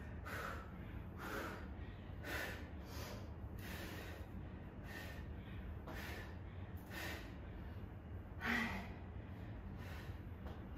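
A woman breathing hard from the exertion of kettlebell deadlifts and squats: short, sharp breaths in and out, about one or two a second, with a louder one about eight and a half seconds in. A faint steady low hum of room tone underneath.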